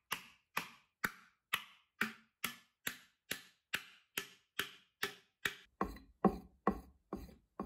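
Steady, evenly spaced sharp ticks at a little over two a second; from about six seconds in each tick carries a deeper thud.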